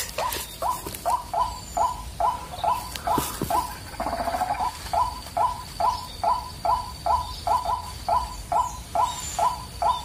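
White-breasted waterhen calls: a steady, even run of short two-toned croaking notes, about three a second, repeating without a break.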